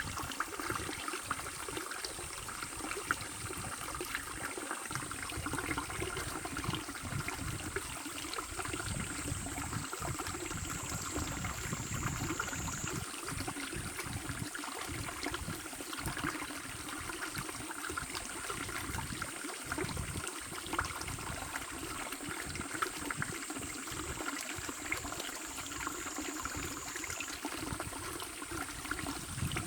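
Shallow mountain brook babbling and trickling over stones in a steady, even flow. A thin high whine runs over the water, jumping slightly in pitch twice.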